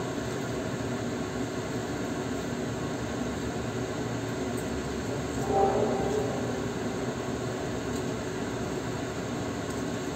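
Steady rushing noise of water spinach being stir-fried in a wok on an induction hob. About halfway through there is a brief louder sound.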